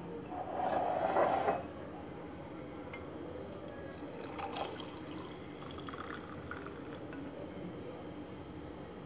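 Mint tea poured from a saucepan through a plastic tea strainer into a glass mug: a louder splashing pour about a second in, then a faint trickle, with a single light tap near the middle.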